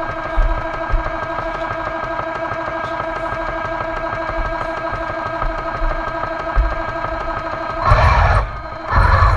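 Radio-controlled Panther tank's sound unit playing a steady engine-idle drone through its small speaker while the tank stands still. About eight seconds in, a louder rush of drive motors, gears and tracks comes in as it moves off; it drops out for a moment, then returns.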